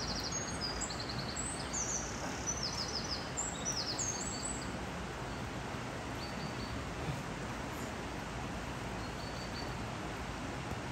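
Steady rush of the stream flowing through the rocky gorge, with a small songbird singing quick, high trills over it in the first half.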